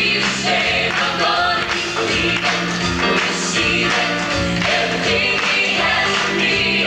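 Upbeat gospel music with a choir singing over a band, tambourine in the mix.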